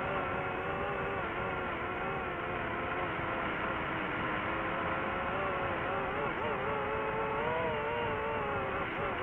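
DJI quadcopter drone's motors and propellers whining steadily as several close pitches, heard from the drone's own camera. The pitches waver and dip about six seconds in as the drone manoeuvres.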